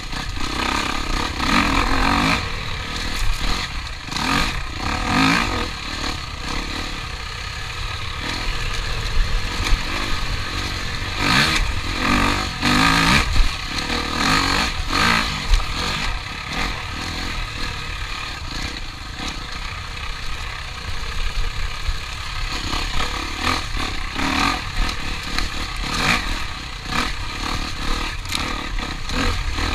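Racing vehicle engines revving up and down, their sound swelling and fading as they pass, with clatter mixed in.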